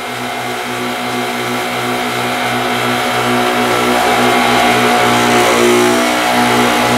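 Ink circulation pump of a Freejet 330TX printer running, a steady mechanical hum with a faint regular pulse, growing gradually louder.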